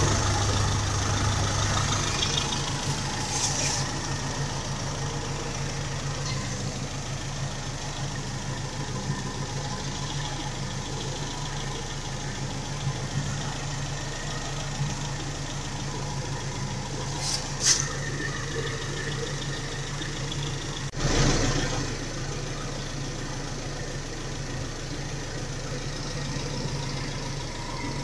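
Carbureted Toyota 4K inline-four engine idling steadily, pulling 22 inHg of manifold vacuum. A single short knock sounds about three-quarters of the way through.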